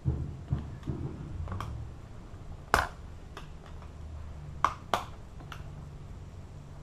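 Parts of a cut padlock being handled: a low rumble of handling at first, then a few sharp clicks and light taps, three of them louder than the rest.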